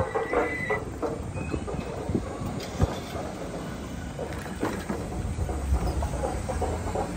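Bicycle rattling and clattering as it rolls over a tiled sidewalk, with a brief high squeal in the first second and a sharp knock a little under three seconds in.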